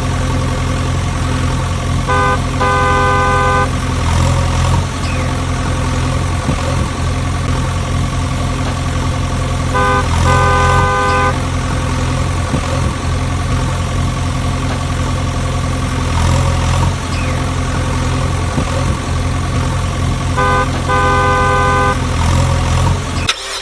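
Vehicle engine running with a steady low rumble, with a horn sounding three times, each time a short toot followed by a longer honk, roughly every eight to ten seconds. The sound cuts off abruptly near the end.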